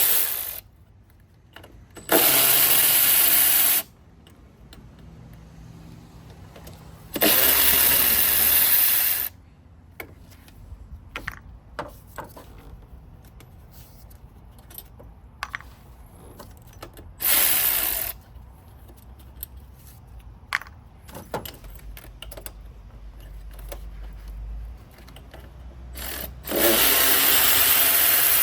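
A power tool with a 10 mm impact socket runs in short bursts of one to two seconds, unscrewing the bolts of the throttle body. It runs about four times, with small clicks of the bolts and socket in between.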